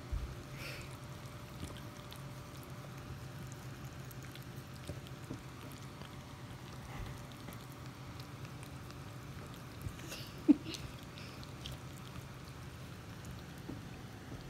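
Two Maltipoo puppies licking and mouthing at each other's faces: soft wet licking, small clicks and snuffles over a steady low hum. One brief sharp sound about ten and a half seconds in is the loudest thing.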